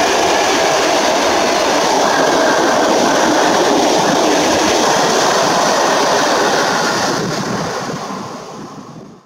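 Loaded freight train of Fas side-tipping dump wagons rolling past, the wheels running over the rails. The sound fades from about seven seconds in as the last wagon goes by, then cuts off suddenly near the end.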